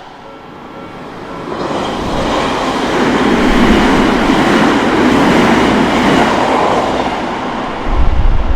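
Odakyu Odawara Line electric train passing over a level crossing: its rumble swells from about a second and a half in and stays loud through the middle. A sudden, deeper and louder rumble sets in near the end.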